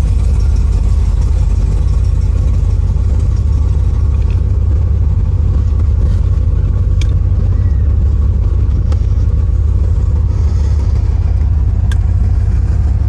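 Steady low rumble of a 1973 Cadillac Coupe DeVille's 472 V8 and road noise, heard from inside the cabin while driving, with a few faint ticks.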